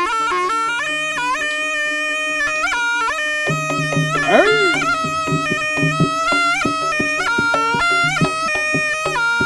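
Jaranan music: a slompret, the Javanese double-reed shawm, plays a held, stepping melody over regular percussion strikes.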